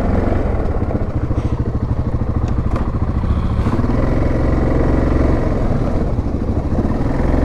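ATV engine running at low speed, its note shifting about halfway through.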